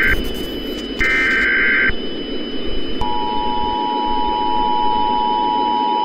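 Emergency Alert System SAME header data bursts: the tail of one burst right at the start and a full burst of harsh screeching warble about a second in. About three seconds in, the steady two-tone EAS attention signal begins and holds, all over a bed of static hiss.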